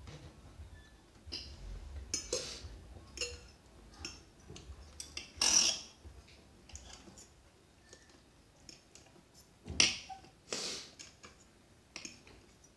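Scattered clicks and clinks of cutlery on plates while eating, with a few short louder scrapes about a third of the way in and again past two-thirds of the way.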